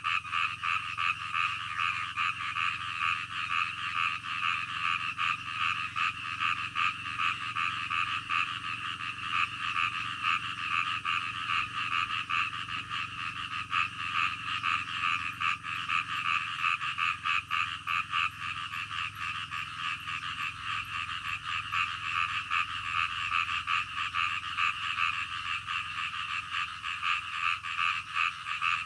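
A dense, steady chorus of many frogs croaking in rapid, overlapping pulses.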